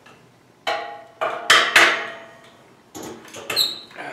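About half a dozen knocks and clanks of things being handled by hand, some with a short metallic ring; the loudest come a little before and after the middle.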